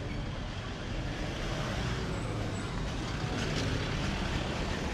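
Road traffic on a city street: vehicles running past with a steady low rumble of engines and tyres.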